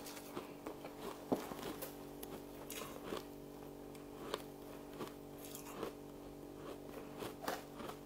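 Close-miked chewing of frost shavings: irregular crisp crunches and clicks, a few every second, over a steady low hum.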